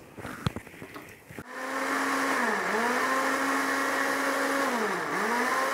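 A few short clicks, then an electric countertop blender starts up about a second and a half in and runs steadily, puréeing fresh tomatoes. Its motor pitch dips and comes back up twice.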